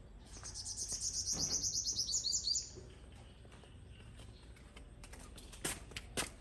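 A bird singing a fast trill of high notes that steps down slightly in pitch over about two and a half seconds. Two sharp clicks come near the end.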